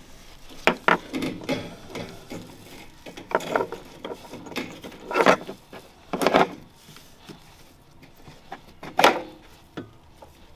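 Gloved hands pressing a new rubber O-ring into its seat around the fuel tank's pump opening: scattered soft rubs and knocks against the plastic and metal rim, a handful of louder ones spread through the few seconds.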